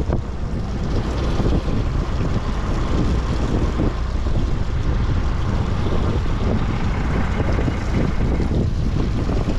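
Wind buffeting the microphone over a steady low rumble aboard a sportfishing boat under way.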